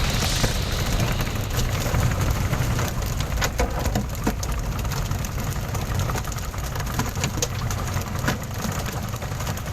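Fishing boat's engine running with a steady low hum, under a constant spatter of water and scattered sharp knocks.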